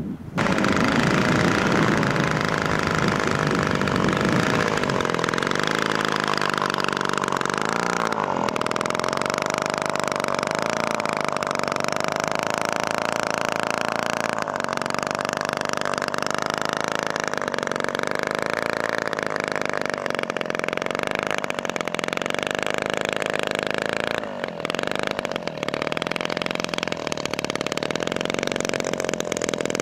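The 3W-55 single-cylinder two-stroke petrol engine of a giant-scale model Spitfire, running steadily at low throttle. Its pitch drifts gently up and down, and the sound dips briefly a little before the end.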